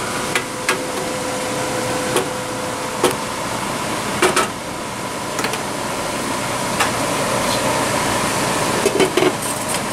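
A stir fry of vegetables and shrimp simmering in sauce in a skillet, with a steady hiss, while a wooden spatula stirs it and knocks against the pan now and then, in a quick cluster near the end.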